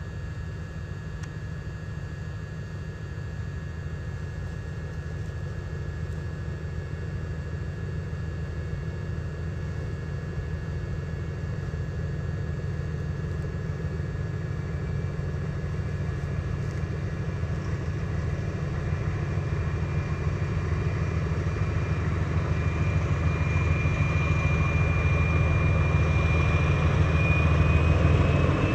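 A train's engine running, growing steadily louder as the train approaches, with a thin whine that appears in the last third and climbs slightly in pitch near the end.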